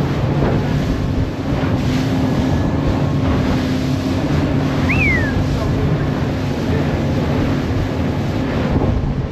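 The outboard engines of a 29-foot SeaVee center-console boat run steadily at cruising speed, with a steady low drone under rushing water and wind buffeting the microphone.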